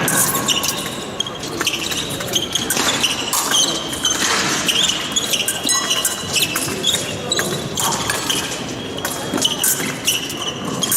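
Fencers' shoes squeaking and feet stamping on the piste in quick footwork during an épée bout, with short squeaks and sharp knocks scattered throughout.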